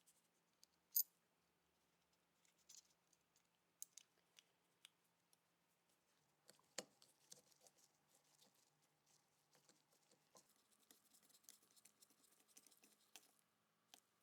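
Faint scattered clicks and small taps of hand work on a bench, sharpest about a second in and again near the middle, then a denser run of light scratching and clicking through the second half.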